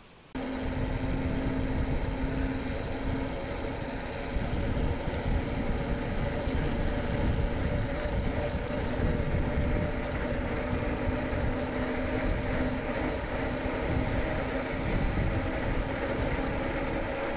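Wind rushing over the microphone and tyre rumble from a mountain bike rolling at speed, with a faint steady hum underneath. It cuts in abruptly a moment after the start.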